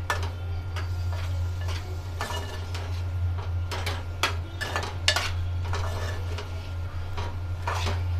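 A steel spoon scraping and clinking against a metal pot while stirring prawns in a thick spice masala, in irregular strokes with a sharper clink about five seconds in. A steady low hum runs underneath.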